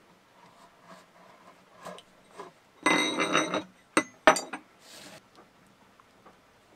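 Long metal splicing fid set down on a wooden table: it rings and clatters for under a second, then gives two sharp knocks. Quieter rustling of rope being handled comes before and after.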